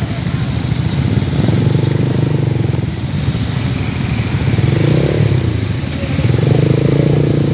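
Several small motorcycles and scooters riding past close by one after another, their engines swelling as each one goes by.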